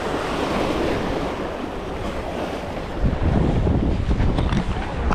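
Wind buffeting the microphone over the wash of waves, gusting harder about three seconds in.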